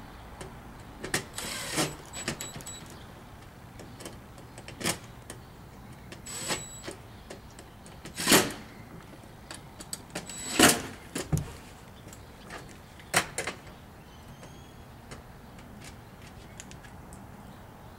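DeWalt 20V cordless drill driving screws in short bursts, about six brief spurts several seconds apart, with clicks and clunks of metal parts being handled between them.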